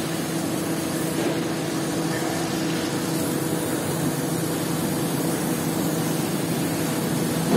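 Steady motor hum from carpet-washing equipment running, with a hiss of water over it on a soaked, foamy rug.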